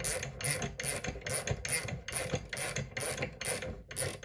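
A ratchet clicking in a steady rhythm, about two and a half strokes a second, as it turns the screw of a sight pusher to drive a 1911's rear sight out of its dovetail. It stops near the end.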